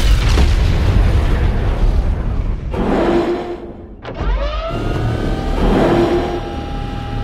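Film sound effects of a large explosion: a deep, heavy rumble for the first few seconds. After a brief lull about four seconds in, a rising whine sweeps up and settles into several steady high tones over a low rumble.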